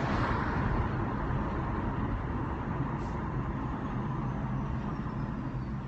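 Steady wind and road noise rushing through the open windows of a moving BMW i3 electric car, heard from inside the cabin.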